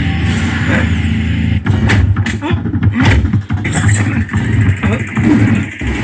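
A movie fight-scene soundtrack played through a Sony HT-S20R 5.1 Dolby Digital soundbar and subwoofer: heavy low bass with a quick run of sharp punch and impact hits about a second and a half in, and snatches of dialogue.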